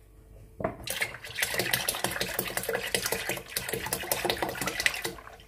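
Milk pouring from a large plastic milk bottle into a big pot already full of milk and mashed rice, splashing and glugging. It starts just under a second in and stops near the end.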